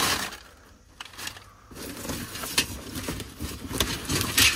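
Cardboard boxes being shifted and lifted by hand: rustling, scraping and knocking of cardboard. A short rustle opens it, there is a lull of about a second and a half, then steady handling with several sharp knocks, the loudest near the end.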